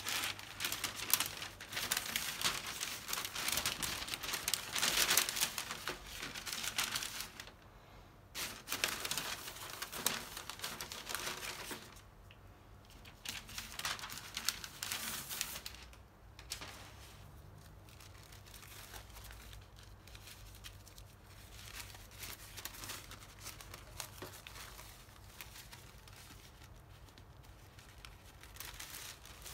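Large sheets of kit paper, the folded building plan and yellow printed sheets, crinkling and rustling as they are unfolded and handled. The crinkling is loudest and densest for the first dozen seconds, then softer and more scattered.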